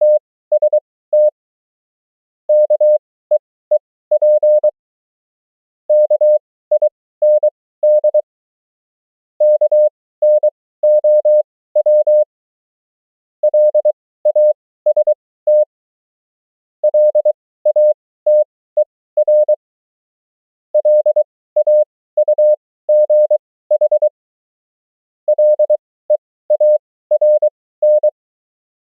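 Morse code (CW) as a single steady tone, keyed on and off in dots and dashes at 23 wpm character speed. The words are sent one at a time with longer gaps between them for an effective speed of 20 wpm (Farnsworth spacing), about eight words, each a short burst with a pause of roughly a second and a half after it.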